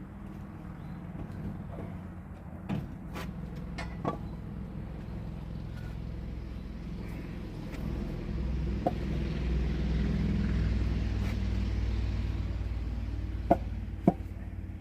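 Engine running steadily, growing heavier and louder from a little past halfway until near the end, with a few sharp clicks and two distinct knocks near the end.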